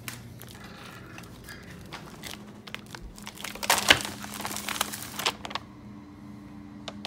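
Plastic bag of frozen fish fillets crinkling and crackling as it is handled, with the loudest cluster of crackles a little past the middle and more about a second later. A low steady hum runs underneath.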